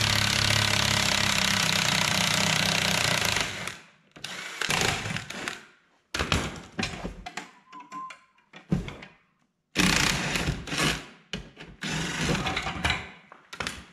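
Cordless impact driver hammering on the metric bolts of a truck seat's metal frame in one steady run of about three and a half seconds. It is followed by shorter bursts and the knocking and clatter of the steel seat frame being handled, with another loud burst about ten seconds in.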